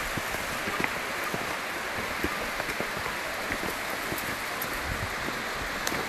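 Steady rush of water from the Urach waterfall's stream running over rocks, with scattered faint clicks.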